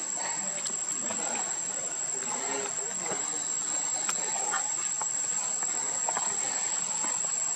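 Insect chorus ringing steadily at one high pitch, with faint scattered clicks and rustles.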